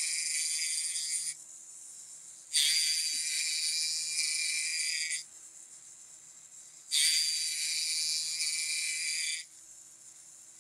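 Electric checkering tool with a 90-degree cutter cutting checkering lines into a rifle's wooden stock: a high buzzing rasp in three passes of two to three seconds each, the first ending about a second in. A faint low hum continues between the passes.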